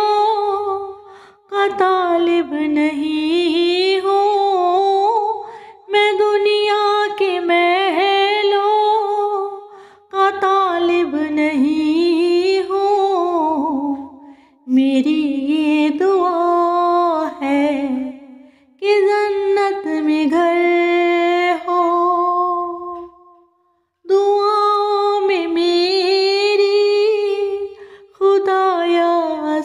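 A woman's solo voice singing a slow, ornamented devotional melody, in phrases of about four seconds separated by short breaths.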